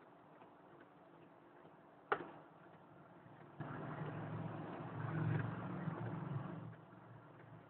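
HP inkjet printer slowly printing a test page: a sharp click about two seconds in, then its print mechanism runs for about three seconds and stops, with long pauses between passes.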